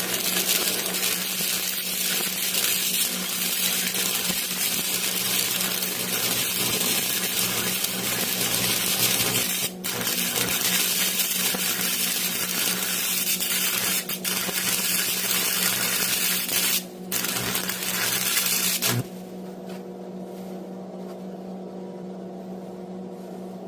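Electric arc welding: the arc's steady crackling sizzle over a constant electrical hum, broken off briefly three times, then stopping about 19 seconds in, leaving only the welder's hum.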